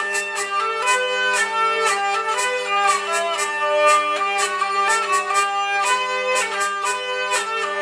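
Hurdy-gurdy (Jean-Claude Boudet, 1983) playing a gavotte: a steady drone under a stepping keyed melody, with sharp rhythmic buzzing strokes several times a second.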